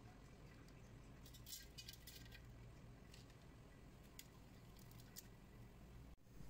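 Faint scattered clicks and light crackles as crumbled vadagam pieces are dropped into oil in a metal pot, over a low steady hum. The sound cuts out for an instant near the end.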